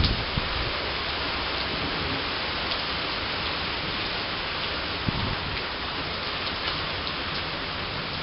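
Steady rain falling during a summer storm, a dense even hiss with scattered drops striking close by. A couple of louder hits stand out, one right at the start and one about five seconds in.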